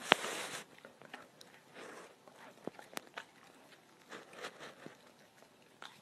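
Golden retriever nibbling at a carrot: scattered short crunches and clicks, with one louder sharp crack and a brief rush of noise right at the start.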